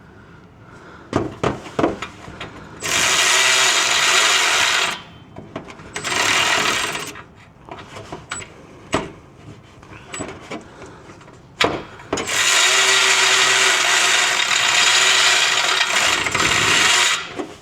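Handheld power tool run in three bursts, one short and the last about five seconds long, on a 13 mm exhaust hanger bolt that the socket is stuck on. Metal knocks and clicks come between the bursts. The owner suspects the bolts are stripped.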